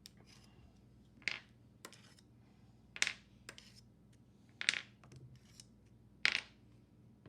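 Small steel parts clinking as they are picked up with a magnet: four sharp metallic clicks, each with a short ring, spaced a second and a half to two seconds apart.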